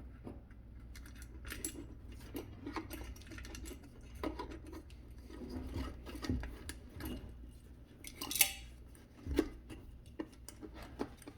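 Handling noise from twisting the electrical wires of a power cord together by hand: scattered small clicks, rubs and scrapes, with a sharper scrape about eight seconds in.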